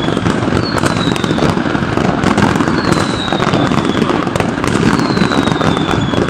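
Many fireworks and firecrackers going off at once: a dense, steady crackle of pops and bangs, with a thin high falling whistle about every two seconds.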